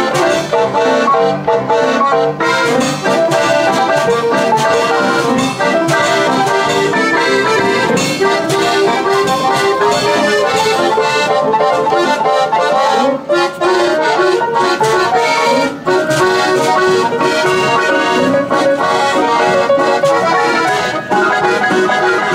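Nickelodeon player piano (orchestrion) playing a tune on its piano and built-in accordion, with drum and percussion strokes from its own bass drum, tambourine and traps.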